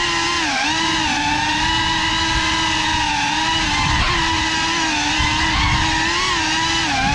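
Ducted 3.5-inch propellers and motors of a GEPRC CineLog35 FPV cinewhoop drone running in fast flight, a loud, steady buzzing whine that rises and dips slightly in pitch as the throttle changes. It is heard from the GoPro mounted on the drone, with a low rumble of prop wash under it.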